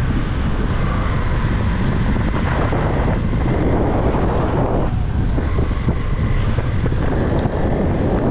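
Wind buffeting an action-camera microphone on a moving motorcycle, a steady loud rush with the bike's engine running underneath.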